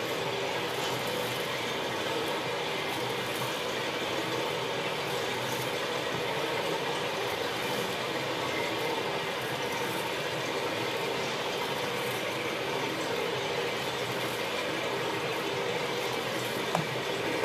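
Batch mixer running steadily, its paddle arms churning a load of oiled maize in a steel trough: a continuous mechanical whirr with the rustle of moving grain and faint ticks.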